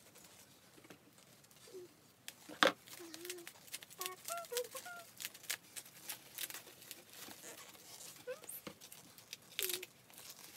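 Tissue paper rustling and crinkling in short bursts as it is handled and pulled out of a handbag, with one sharper knock a little under a third of the way in.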